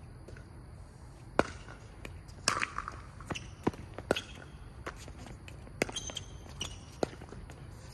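Pickleball rally: about ten sharp pops of the hollow plastic ball off paddles and the hard court, unevenly spaced, with a quick exchange of three hits near the middle.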